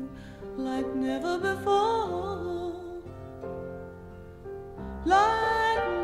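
Background music: a gentle melody with wavering, gliding notes, swelling louder about five seconds in.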